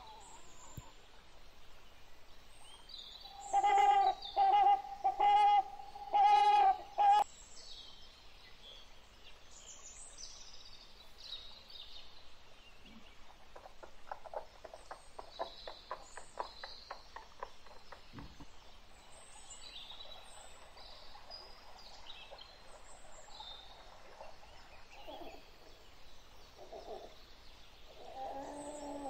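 Birds chirping throughout, with a loud pitched animal call in five short bursts a few seconds in. Around the middle comes a quieter, rapidly quavering call that fits a horse's whinny.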